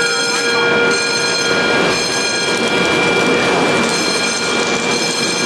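Aircraft hangar foam fire suppression system discharging: a loud, steady rushing noise with several steady high tones sounding over it.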